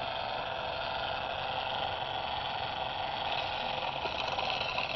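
A Marx Lumar wind-up toy phonograph's clockwork spring motor running with the turntable spinning: a steady mechanical whir. About three seconds in, the needle is lowered onto the plastic record and a brighter hiss joins.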